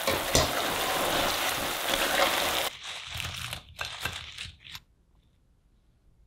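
Oil sizzling as battered potato sticks deep-fry, with one sharp knock of a utensil about a third of a second in. The sizzle cuts off suddenly after about two and a half seconds, giving way to a few light clatters and rustles of the crisp fried sticks tipped onto a plate, then near quiet.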